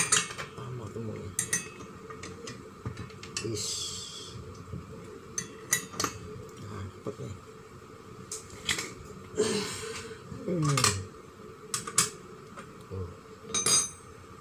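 Scattered metallic clicks, clinks and short scrapes from hands working a circular saw's blade, arbor bolt and wrench during a blade change.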